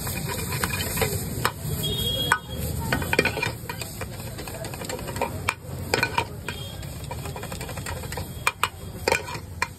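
Slotted metal spatula scraping and knocking against a black iron pan in quick, irregular strikes as an egg mixture is stirred and broken up, with the food sizzling over a steady low rush.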